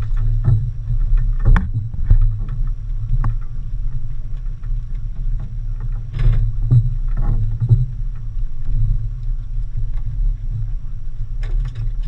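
Boat's twin outboard motors running at idle with a steady low hum, with several short splashes and knocks as a hooked mahi-mahi thrashes at the side of the hull.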